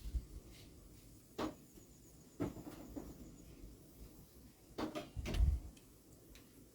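A few separate knocks and clunks, as of things being handled or a cupboard or door being moved, with the loudest, deepest thump about five and a half seconds in.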